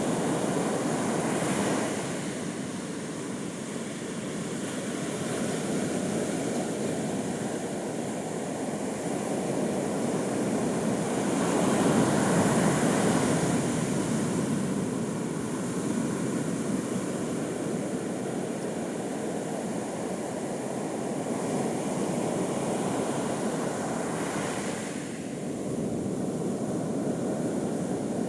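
Ocean surf on a beach: waves breaking and washing in as a continuous rush that swells and ebbs every several seconds, with the biggest surge about twelve seconds in.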